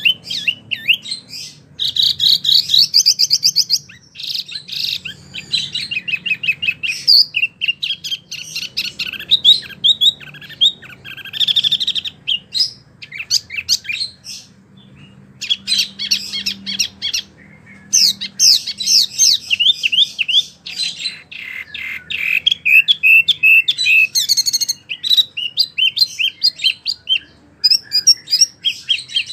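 A songbird known in the Indonesian bird trade as a wambi mini singing energetically ('gacor'). It pours out fast chirping, trilling phrases with only brief pauses.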